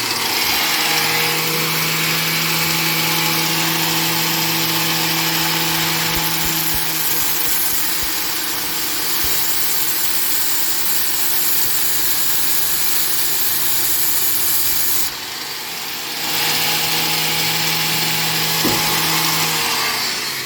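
Angle grinder locked running in a vise, grinding down a steel nut that a drill spins against the wheel on a cut-off bolt: a loud, steady grinding hiss over motor whine. The grinding drops off briefly about fifteen seconds in, then resumes.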